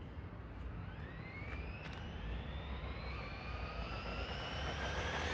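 Brushless electric motor of a Maverick Quantum MT Flux RC monster truck whining as it accelerates toward the camera at speed. The whine starts about a second in, climbs steadily in pitch and grows louder as the truck closes in.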